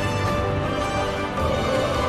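Background music with held notes over a steady bass.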